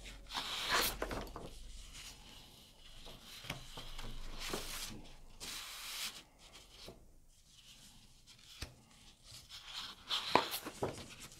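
Sheets of patterned designer paper sliding over one another and rustling as they are leafed through, with soft swishes about a second in, around five seconds in and again near the end.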